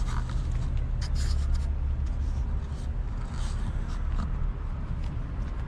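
Rubbing and scraping of a hand-held camera being moved about, in short scattered bursts about a second in and again past the middle, over a steady low rumble.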